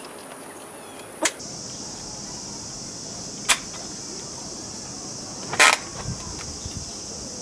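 Sharp plastic clicks of a motorcycle smartphone holder being handled and snapped into place: three clicks, the last and loudest a short rattling double click about five and a half seconds in. A steady high insect drone runs behind them.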